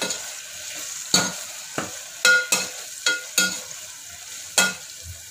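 Metal ladle stirring potato-and-spice masala in a pressure cooker, clanking against the cooker's sides about eight times, over a steady sizzle of the masala frying in oil.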